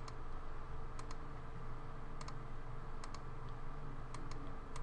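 Computer mouse clicks, several in quick pairs, about once a second, over a steady low hum of room noise.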